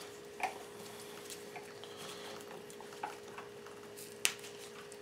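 Faint handling sounds of gloved hands working a mink's skin loose from the carcass: soft rustling and a few small sharp clicks, the sharpest near the end, over a steady low hum.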